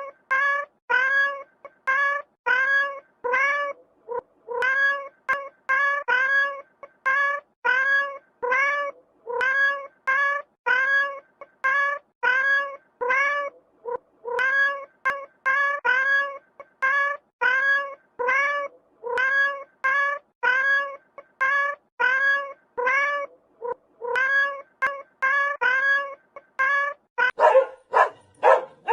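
A cat meowing over and over in a steady rhythm, nearly two short identical meows a second, with a few brief pauses. Near the end it gives way to dog barking.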